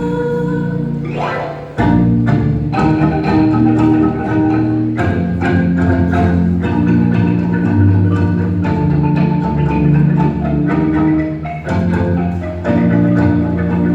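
Kolintang ensemble of wooden xylophones playing a brisk passage. A held chord rings for about the first second and a half, then the full ensemble comes in with fast, rhythmic struck notes over a low bass part, with a brief break near the end before it picks up again.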